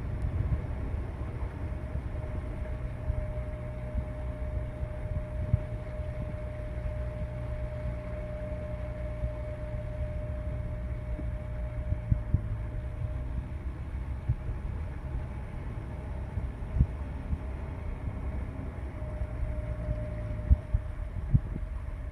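A boat's motor running steadily: a low rumble with a faint steady whine over it, and a few light knocks, more of them near the end.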